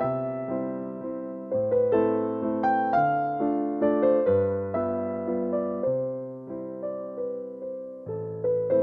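Background music: a gentle piano or electric piano piece, with chords and a melody changing about every second.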